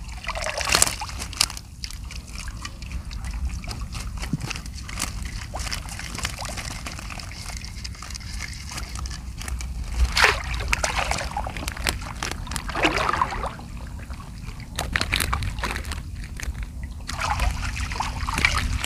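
Water sloshing and splashing, with irregular sharp splashes, a few louder ones standing out, over a steady low rumble.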